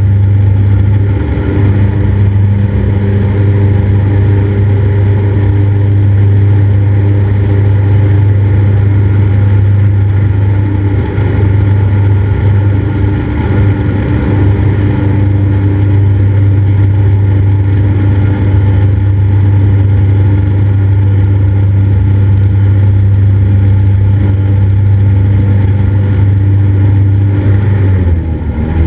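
Cessna 172's piston engine and propeller droning steadily in cruise, heard loud from inside the cockpit. Near the end the engine note dips and shifts to a different pitch, as with a power change.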